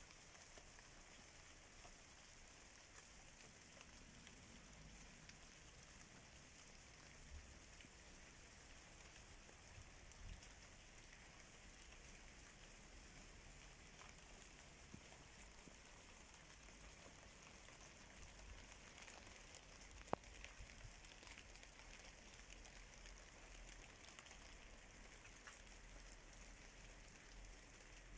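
Faint, steady rain falling on the plants and tiles of a rooftop terrace, an even patter of drops. A single sharp click sounds about twenty seconds in.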